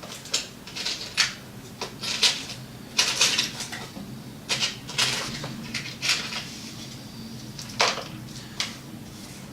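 Hex Allen key working the small screws of an RC car's shock absorber mount: irregular light metal clicks and clinks, with a few longer scrapes about three and five seconds in.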